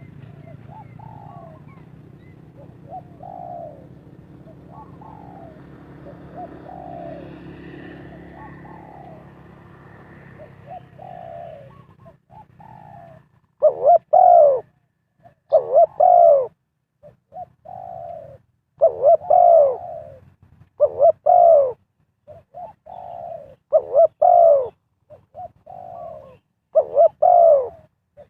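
Spotted dove cooing in repeated short phrases, faint over a low steady hum at first, then loud and close from about halfway through.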